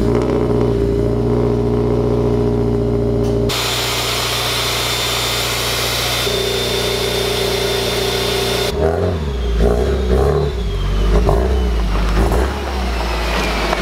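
Turbocharged Subaru WRX STI flat-four engine idling just after a cold start, running at a steady fast idle. Heard first at the exhaust, then at the engine bay, where the open cone intake adds a hiss. Over the last few seconds the engine note wavers with a few small rises.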